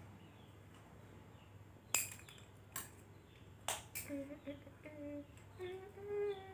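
Light clicks and knocks of plastic drinking-straw pieces and a hot glue gun being picked up and set down on a tabletop, with sharp knocks about two, three and four seconds in. In the second half a faint voice sounds a few short pitched notes in the background, the last one longer.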